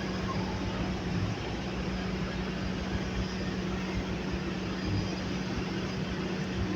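Skid steer loader engine running steadily at a constant speed, with a steady hum.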